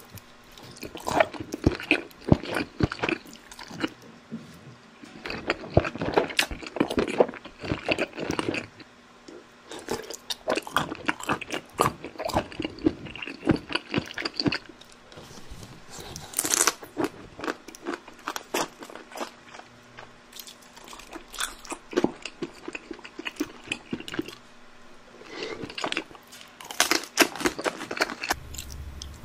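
Crunching and chewing sounds of a grey parrot eating, coming in bursts of quick crunches a few seconds long with short pauses between.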